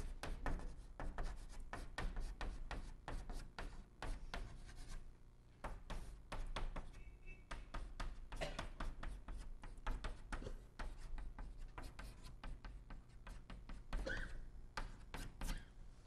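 Chalk tapping and scratching on a blackboard as characters are written in quick short strokes, with a brief pause about five seconds in.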